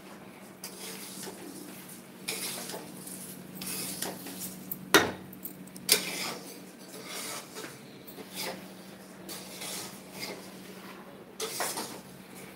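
Metal spatula scraping and stirring rice in a steel kadhai, in irregular strokes with sharp clanks against the pan, the two loudest about five and six seconds in. A low steady hum runs underneath.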